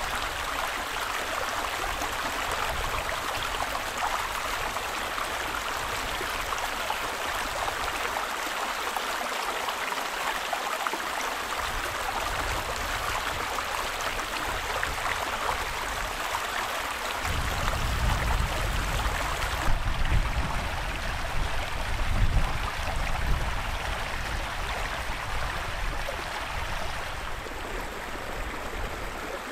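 Small stream running and trickling over rocks, a steady rushing. From a little past halfway, irregular low rumbles come and go over it.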